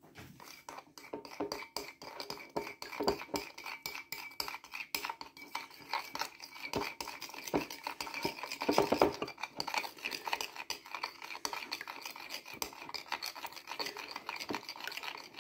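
Three raw eggs being beaten in a bowl with a utensil: a quick, irregular run of light taps and clinks against the bowl, a little louder about nine seconds in.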